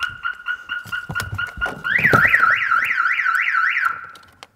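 Retrofitted car alarm siren going off: first a rapid, steady-pitched beeping, then about two seconds in a warbling siren that sweeps up and down about three times a second, cutting off a little after four seconds as the alarm is disabled. Knocks and clunks from handling under the dashboard sound beneath it.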